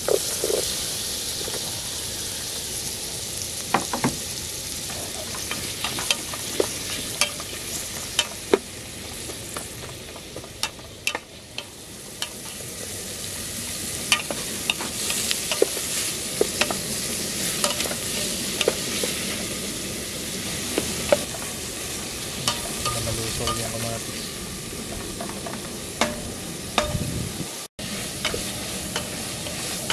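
Shallots, tomatoes and lemongrass sizzling in an aluminium camping pot on a gas camp stove, stirred with a wooden spoon that clicks and scrapes against the pot again and again over a steady frying hiss.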